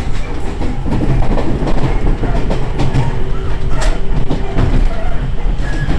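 Iyo Railway train running along the rails, a continuous rumble with clattering wheels and a steady hum through part of it.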